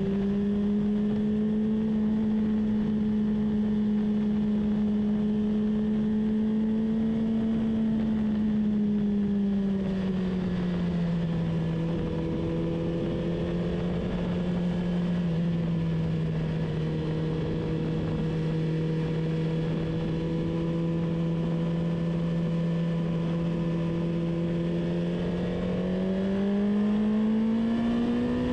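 Car engine running at high, steady revs under way on the track. Its note eases down about ten seconds in, holds level for a long stretch, then rises near the end as it accelerates again.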